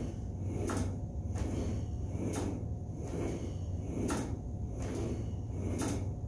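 Single-leg hops on a Total Gym: a foot landing on the jump board at the foot of the rails, four sharp knocks at an even pace, with the glideboard carriage rolling up and down its rails between landings. A steady low hum runs underneath.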